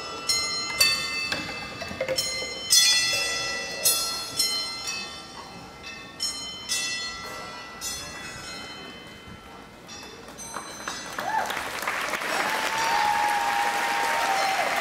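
Struck metal percussion ringing like bells, a string of strikes at uneven intervals that grow softer and die away. About eleven seconds in, an audience breaks into applause with a few cheers.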